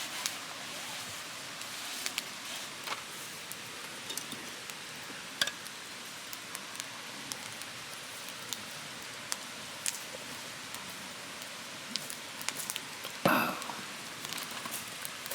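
Food sizzling in a pan: a steady hiss with scattered small pops and crackles, and a louder burst of sizzle about 13 seconds in.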